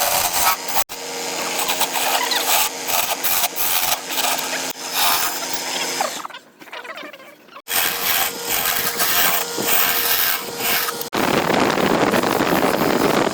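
Wood lathe running with a hand-held turning tool scraping and cutting the spinning wood, with a steady motor hum under the scraping. The sound breaks off abruptly a few times, goes quieter around the middle, and turns to a denser, harsher scraping in the last two seconds.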